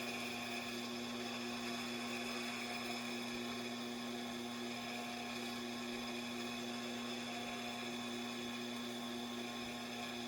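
Tormek T-8 wet sharpening machine running with a steady hum over an even hiss.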